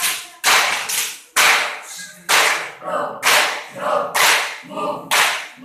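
A group clapping in unison in a steady rhythm, about one clap a second, with voices between the claps.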